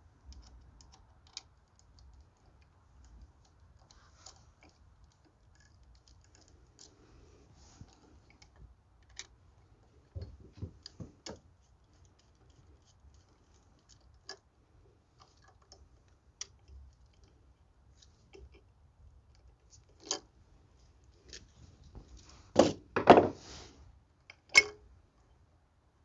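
Small clicks and metal scrapes of a Robertson No. 2 screwdriver working the terminal screws of a GFCI outlet, and of the wires being worked free, with scattered taps and a louder run of clicks and rustling a few seconds before the end.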